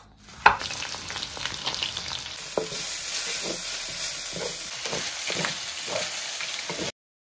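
Food sizzling in a hot wok while a wooden spatula stirs it, with repeated scraping strokes over a steady sizzle. The sound cuts off suddenly near the end.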